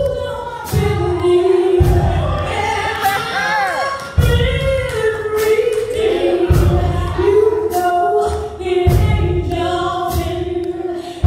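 Church praise team singing a slow gospel song into microphones, several voices holding long notes together. Underneath are deep bass notes and a steady beat.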